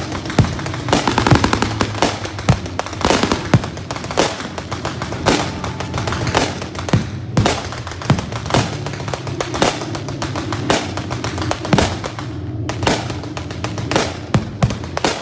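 Simulated anti-aircraft fire: rapid, irregular bangs of blank gunfire and pyrotechnic bursts, several a second, over music playing throughout.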